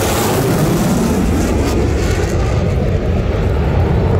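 Loud jet noise from an F-16 fighter passing overhead. The hissing top of the sound fades about two seconds in, leaving a deep rumble.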